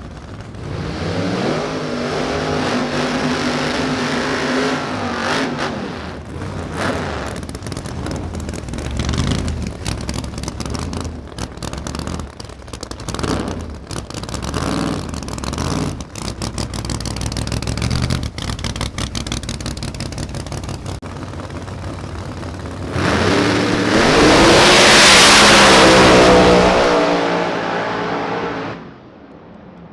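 Drag radial race car engine revving hard, then running in a choppy, stuttering stretch, then a very loud full-throttle run with rising revs that cuts off suddenly near the end.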